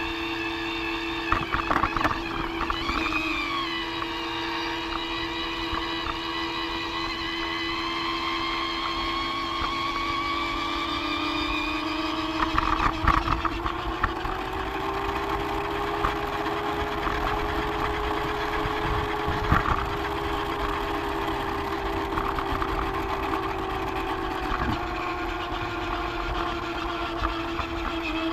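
Small electric motor of a Lego toy train running, a steady whine with several tones that drift slowly up and down in pitch, with a few scattered clicks.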